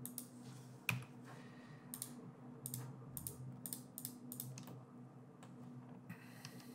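Computer keyboard keys and mouse buttons clicking: about ten faint, irregularly spaced clicks over a low steady hum.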